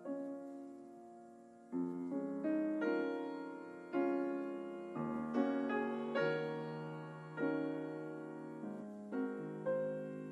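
Soft, slow solo piano music: gently struck notes and chords, each fading away.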